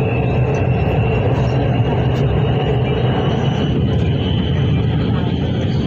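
Electric Orange Line metro train running, heard from inside the carriage: a steady low rumble with a high motor whine that rises slightly in pitch.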